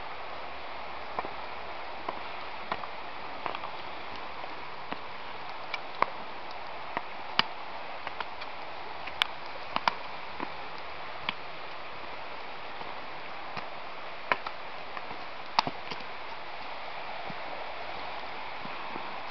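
Steady rushing noise of the Ourthe river flowing beside the path. Irregular sharp clicks run through it from walking on the stony, leaf-covered path.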